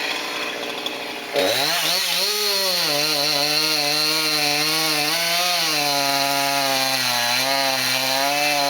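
Two-stroke chainsaw ticking over, then throttled up hard about a second and a half in and cutting. Its pitch wavers up and down as the chain bites into the wood and the engine is loaded.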